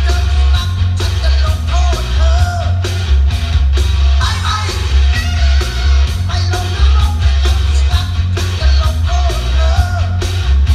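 Loud dance music with a sung vocal, heavy bass and a steady fast beat, played over a large outdoor sound system.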